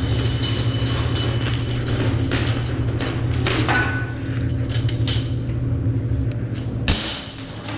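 Motor-driven drain-cleaning machine running with a steady hum and clattering knocks as it works a drain line clogged with paper wipes. It stops with a sharp clunk about seven seconds in.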